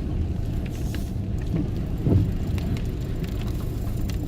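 Steady low rumble of a car driving, engine and tyre noise heard from inside the cabin, with a few faint ticks.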